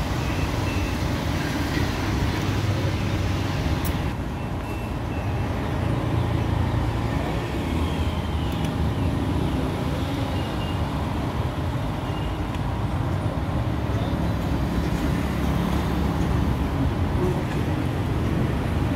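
Steady road traffic noise: vehicle engines running and passing in a continuous low rumble.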